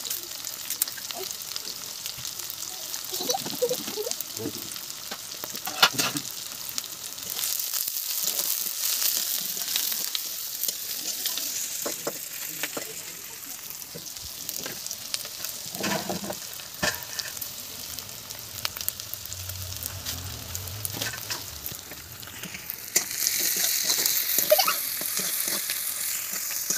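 Sliced onions and green chillies sizzling in hot oil in an iron kadai, with a steady hiss and scattered clicks. A spatula scrapes and stirs them against the iron. The sizzle gets louder about 23 seconds in.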